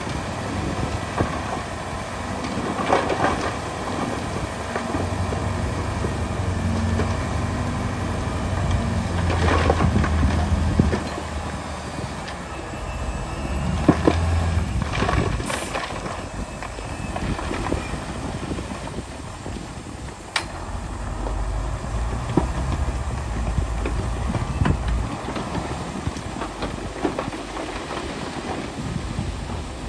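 LiuGong B160C crawler bulldozer at work: its diesel engine runs under changing load while the steel tracks clatter, with sharp metal clanks every few seconds.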